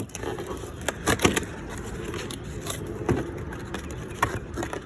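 Packaging being handled: a few scattered knocks and scraping sounds as a tool box and its case are moved about, over a steady low background noise.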